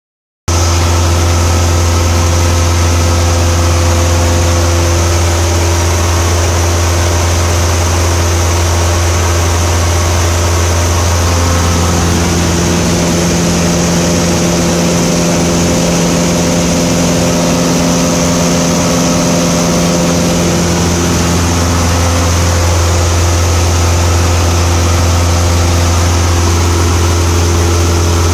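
Single-engine light aircraft's piston engine and propeller droning steadily, heard inside the cockpit in flight: a loud, deep, unbroken hum with a few steady tones and cabin hiss above it.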